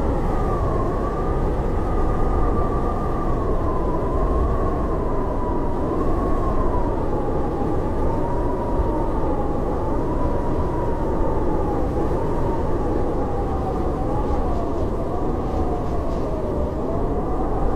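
Howling blizzard wind: a steady low rush with a wavering whistling howl on top that slowly sinks in pitch.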